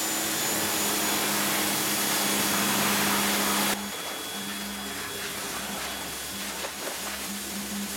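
Pressure washer spraying rinse water over an engine bay: a loud hiss of spray over a steady motor hum, which drops sharply about four seconds in. After that the spray is quieter and the hum cuts in and out.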